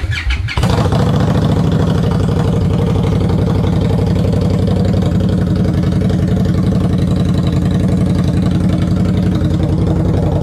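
Indian Scout Bobber Sixty's V-twin engine starting and running straight-piped, with the exhaust mufflers removed; really loud. It catches about half a second in, runs steadily at idle and is switched off at the end.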